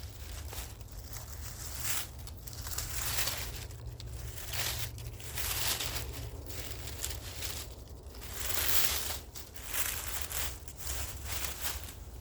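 Dry leaf litter and twigs rustling and crunching as they are pushed aside and handled, in irregular bouts.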